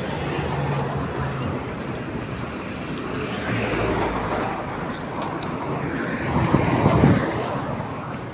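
Street traffic noise from passing cars, swelling twice, the louder swell about seven seconds in.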